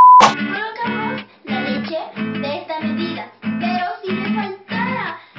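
A short, loud high beep, the colour-bar test tone, at the very start, then acoustic guitar strummed in a steady rhythm of repeated chords as background music.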